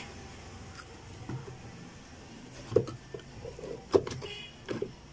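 Handling noise from moving the wires and the wooden speaker-terminal panel inside an MDF speaker cabinet: two sharp knocks about a second apart, with short creaks and rubbing between and after them.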